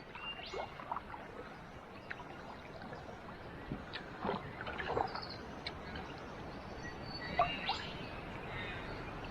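Scattered bird chirps and calls over a low steady background, with a few short clicks.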